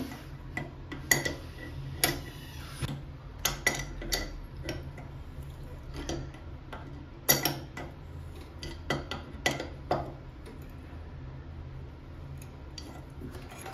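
Steel adjustable wrench clinking against the chrome nut and angle valve of a sink's braided supply hose as the nut is tightened: sharp metal clicks and clanks about a second apart, stopping after about ten seconds.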